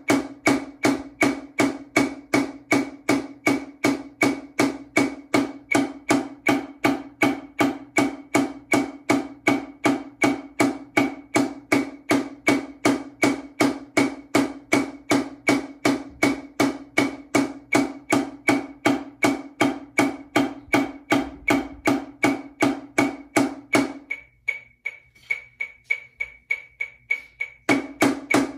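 Snare drum struck with wooden sticks in steady, even full strokes at 80 beats per minute, two strokes to the beat, sixteen with one hand and then sixteen with the other, over a metronome click. The strokes stop about 24 seconds in, leaving only the metronome ticking, then start again a little faster at 100 beats per minute near the end.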